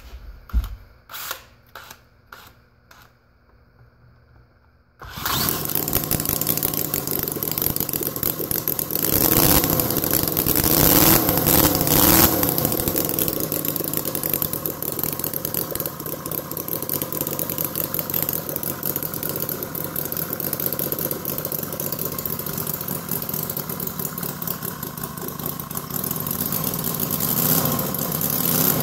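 A handbuilt miniature 90-degree V4 model engine starting: a few brief knocks, then it fires about five seconds in and runs loudly. It revs up briefly around ten seconds in, then settles to a steady fast run with the uneven firing rhythm of its 90-degree V4 layout, while still being run in.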